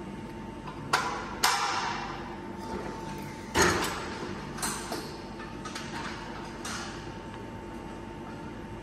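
Steel reinforcing mesh clanking against the steel beam and pins of a mesh bending machine as it is handled. There are about six sharp metallic clanks with short ringing tails, two close together about a second in and the loudest about three and a half seconds in.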